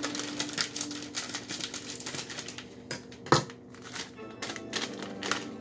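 Crinkling and crackling of a foil Doritos chip bag being handled and pulled open, with one sharp pop a little past halfway.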